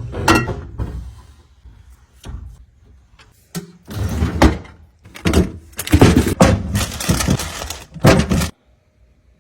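Fridge parts and containers being handled: an irregular run of knocks, thumps and scraping that stops suddenly near the end.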